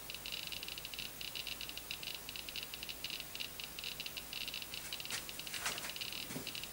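Geiger counter with a Soviet-era STS tube clicking rapidly and irregularly as it counts radiation from a radioactive 1955 compass held against it. Faint handling rustle joins near the end.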